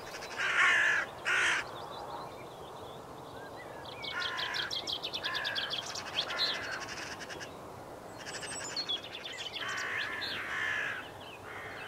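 Hooded crows cawing: two harsh caws at the start, then runs of caws about four seconds in and again near the end. This is the agitated calling of a crow whose mate has just been shot, and it draws other hooded crows in.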